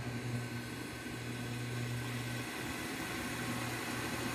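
Induction cooktop running on high heat under a pot of water: a steady low electrical hum with a fan-like hiss. The hum drops out for a moment about two and a half seconds in.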